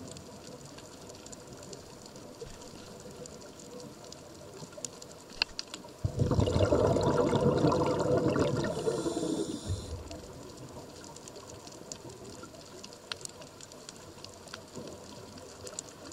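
Scuba diver breathing through a regulator: a long rush of exhaled bubbles from about six seconds in to about ten, with a high hiss over its tail, and faint scattered clicks before and after.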